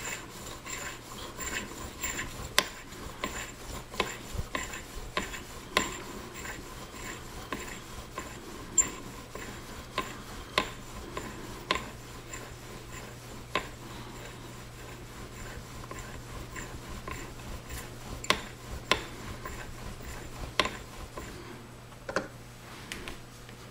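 A pocket-watch screw head being worked back and forth on the oxide-charged lap of an old screw head polishing machine. It makes a rhythmic rasping scrape, broken by sharp clicks every second or two.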